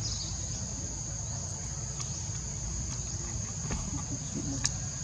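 Steady high-pitched drone of insects in the surrounding forest over a low rumble, with a couple of sharp clicks near the end.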